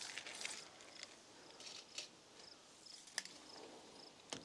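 Faint rustling and a few sharp clicks and knocks from handling work, with an insect chirping in short, evenly spaced high pulses from about halfway in.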